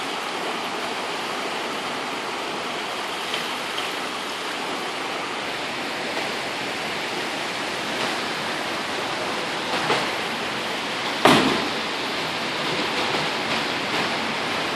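Floodwater from an overflowing river rushing steadily over a concrete bank and across paved ground, with one sharp knock about eleven seconds in.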